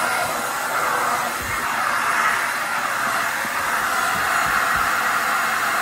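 Halostar cordless stick vacuum running steadily, its motor whining with slight swells as the nozzle is worked across a rug.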